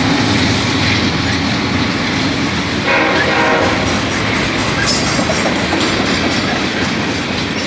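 A Union Pacific freight train rolling past with a steady loud rumble and clatter of wheels on rail. About three seconds in, a short blast of the locomotive's air horn sounds over it.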